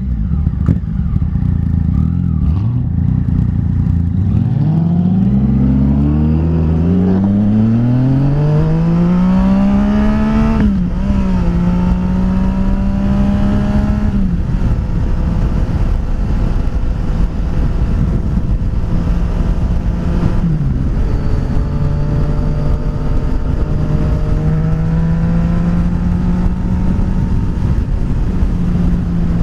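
Yamaha FZ-09's inline-three engine accelerating, its pitch climbing for about six seconds from a few seconds in before an upshift, then holding a steady cruise with another shift about two-thirds of the way through and a gentle rise near the end. Steady wind noise on the camera microphone underneath.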